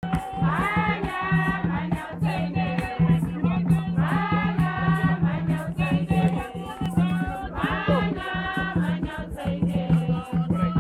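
A crowd singing together in chorus over a steady rhythmic beat of crisp strokes, about three a second.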